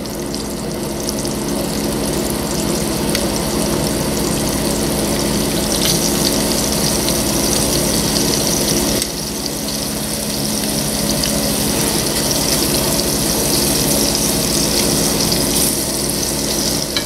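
Cornstarch-dusted beef cubes sizzling as they sear in hot olive oil in a braising pan, the sizzle growing stronger about six seconds in as more pieces go in. A steady low hum runs underneath.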